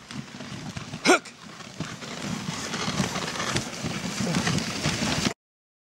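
A sled dog barks once about a second in, then a team of sled dogs runs on snow with a busy, rhythmic patter of paws that grows louder. The sound cuts off suddenly near the end.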